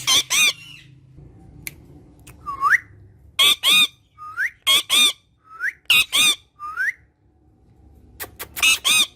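Parrot calling: about five quick pairs of short, harsh squawks, with four short rising whistles in between.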